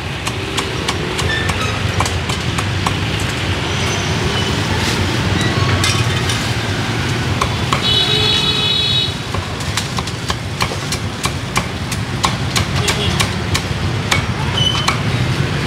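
Cleaver chopping crispy-skinned roast pork on a chopping board, a run of sharp irregular knocks that come thicker in the second half, over steady street traffic noise. A brief high-pitched beep sounds about eight seconds in.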